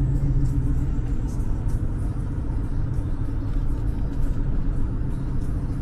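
Toyota Hiace van on the move, a steady low drone of engine and road noise.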